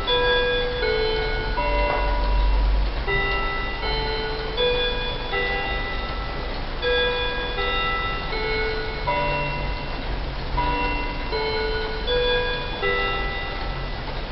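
Seiko R-Wave quartz table clock playing its electronic chime: a steady run of bell-like notes, each about half a second long, stepping up and down in pitch as a melody.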